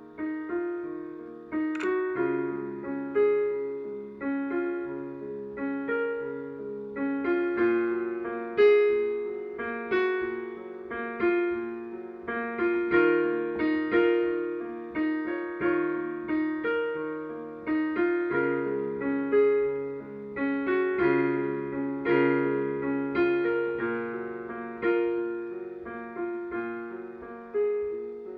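Solo piano music: chords and a melody in the middle register over a low bass line, each note struck and left to ring and fade, with a new note or chord coming roughly every half second to second.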